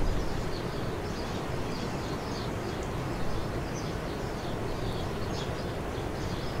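Steady outdoor background noise with scattered high bird chirps.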